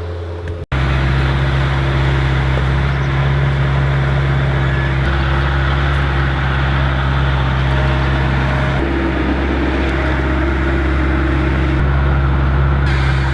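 A vehicle engine runs steadily at constant speed, a loud low drone. It starts abruptly after a brief dropout about a second in.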